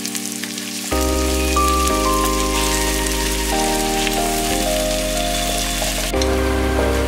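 Diced onions sizzling in hot oil in a steel pot, a steady crackling hiss, over background music of held chords with a deep bass that change every second or two.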